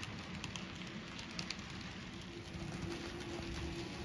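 N scale model trains running on the layout track: a steady crackling rattle of small wheels on the rails with scattered sharp clicks. A faint steady hum joins about halfway through.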